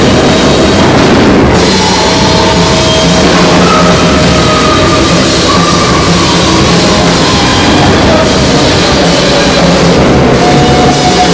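Loud, dense free-improvised jazz-noise band playing live: a drum kit played continuously under a thick wall of sound, with wind instruments holding long tones that glide slightly above it.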